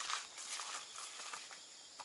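Faint footsteps and rustling on grass as a person moves about at a tent, irregular soft ticks every half second or so, over a steady high-pitched chirring of insects.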